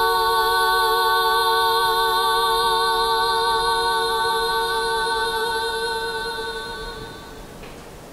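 A woman's voice holding one long wordless sung note, with no accompaniment, that fades out about seven seconds in. A faint steady hiss remains.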